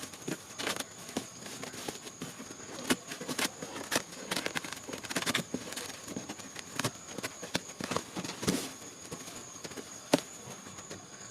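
Irregular clicks, crackles and rustles of packaging being handled, with a few sharper knocks and one loud click near the end.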